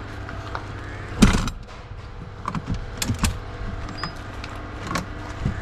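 Several sharp knocks and clicks of things being handled, the loudest a little over a second in, over a steady low hum.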